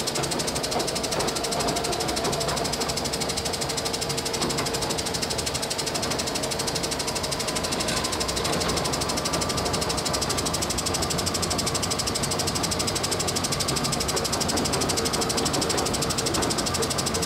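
DOALL 2613-2 vertical band saw running steadily with no cut being made, in medium gear, its variable-speed drive being wound up toward top speed. Its motor, drive and blade make a dense mechanical running noise with a fast, even fine patter.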